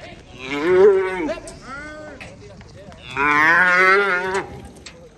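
A young fighting cow bellowing: two long, loud, wavering moos, the second starting about three seconds in, with a shorter, fainter call between them.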